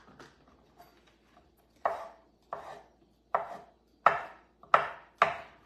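Knife slicing mushrooms on a wooden cutting board: six cuts, about one every two-thirds of a second, starting about two seconds in.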